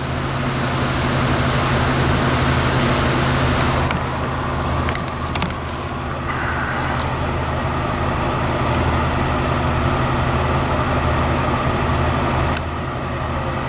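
A motor vehicle's engine idling steadily: a constant low hum under an even hiss, with a few faint clicks.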